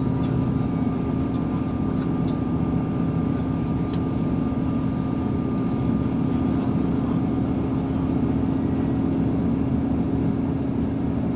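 Cabin noise aboard a moving Class 158 diesel multiple unit: a steady drone with a constant hum over wheel-on-rail rumble. A few light ticks come in the first four seconds.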